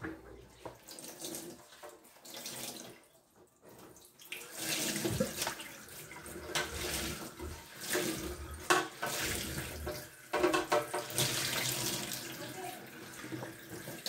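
Kitchen tap running into a stainless steel sink, the water splashing as gloved hands rinse under the stream. It starts about four and a half seconds in; before that there are only a few faint handling knocks.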